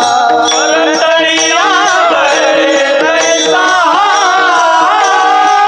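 Devotional bhajan singing: a voice sings an ornamented, gliding melody over a steady held drone, accompanied by mridang drum strokes.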